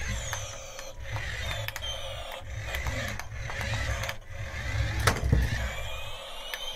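Small battery-powered electric motor and plastic gears of a remote-control toy airliner whirring as it drives and turns on its wheels, with a thin whine that slides in pitch and a few sharp clicks, the loudest about five seconds in.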